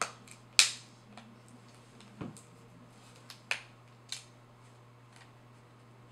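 Plastic LifeProof fre waterproof case clicking shut around an iPhone 6 as its edges are pressed together: a run of sharp clicks at uneven spacing, the loudest about half a second in, then a few fainter ticks.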